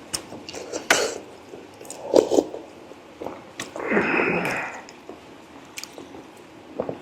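Close-miked chewing, with wet smacks and clicks from eating braised pork leg, and a longer breathy noise about four seconds in.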